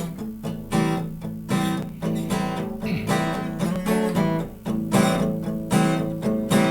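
Acoustic guitar strummed in a steady rhythm, playing the instrumental intro of a rock song.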